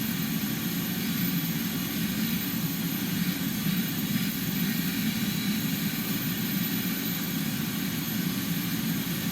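Vacuum cleaner running steadily, vacuuming sawdust out of a car's interior.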